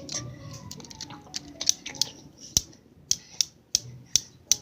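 A run of sharp, irregular clicks and taps, about ten in all, the loudest about two and a half seconds in, with a faint falling tone in the first second or so.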